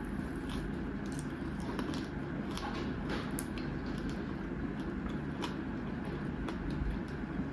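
Fingers pulling apart fried fish and mixing it through rice, giving scattered small crisp clicks and wet squishes over a steady low hum.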